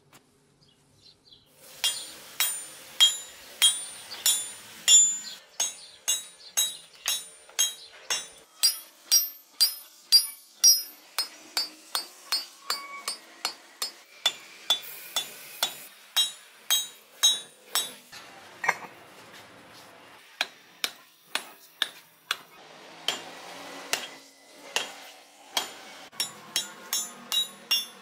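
Hand hammer striking a glowing Damascus billet of 52100 bearing steel and 1020 iron on an anvil. The blows start about two seconds in and come about two a second, each with a high metallic ring, with a couple of short pauses.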